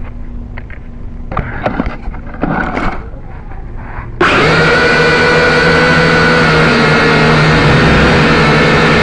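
Drone's electric motors and propellers starting suddenly about four seconds in, then running with a loud, steady whine. Before that, faint handling clicks and rustles.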